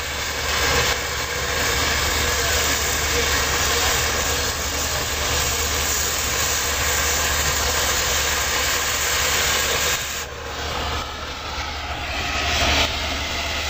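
Steady, loud hissing noise, easing off somewhat about ten seconds in.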